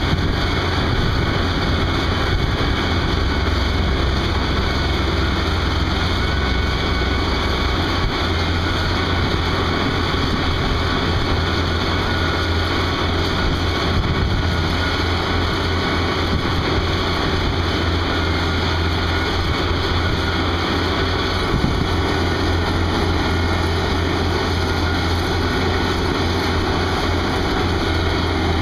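Tracked one-pass trencher working steadily, its diesel engine running under load as the digging boom cuts a trench, with a constant low hum.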